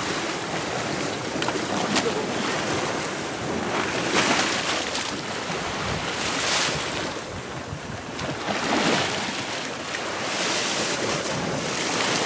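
Ocean swell breaking and washing in, rising in surges a few seconds apart, with wind on the microphone.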